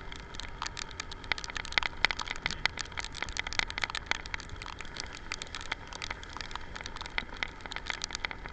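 Rain falling, heard as a dense, irregular stream of quick drop ticks hitting a nearby surface.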